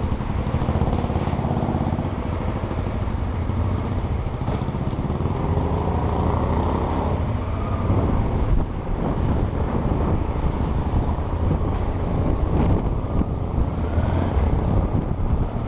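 Honda XR250 Tornado single-cylinder motorcycle engine running steadily with a passenger aboard, its low engine sound rising and falling slightly.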